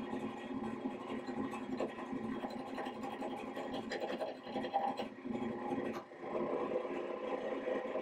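Wood lathe running with a black walnut blank spinning on it, while a round carbide-insert turning tool scrapes and cuts the wood, a steady motor hum under an uneven scratching; the cutting breaks off briefly about six seconds in.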